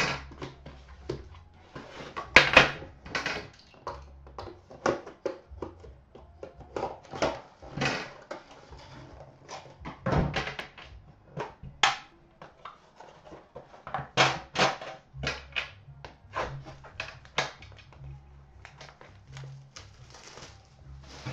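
Handling and unsealing a boxed set of hockey cards and its black metal tin: a string of irregular sharp clicks, taps and scrapes, a few louder knocks ringing briefly.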